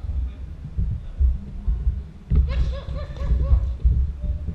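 Irregular dull thuds of boxers' footwork on the ring canvas, picked up close to the ring floor. About halfway through comes a brief run of laughter.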